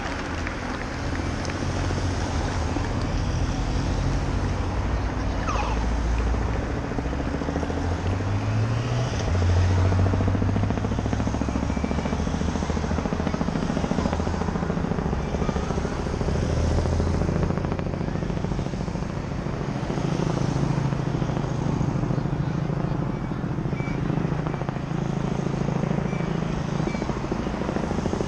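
A steady low engine drone whose pitch shifts slowly up and down, over a constant noisy haze.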